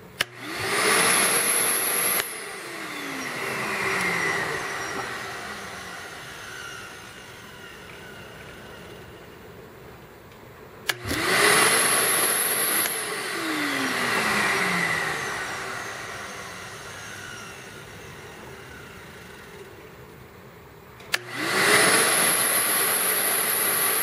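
Vacmaster Professional 9-gallon wet-dry shop vac motor switched on three times. Each time it spins up with a rising whine, runs briefly, then is switched off and winds down with a falling whine over several seconds. The third run is still going at the end.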